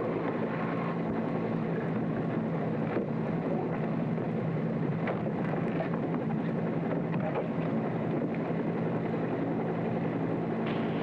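UH-1 'Huey' helicopter running in flight, its turbine and rotor making a steady, unbroken drone with a low hum underneath.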